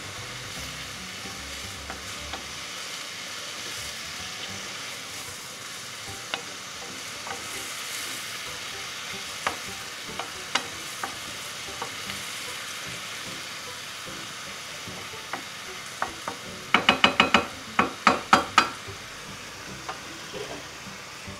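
Sliced field mushrooms sizzling steadily in oil and butter in a non-stick frying pan while a wooden spatula stirs them. Scattered clicks of the spatula against the pan are heard, with a quick run of knocks about three-quarters of the way through.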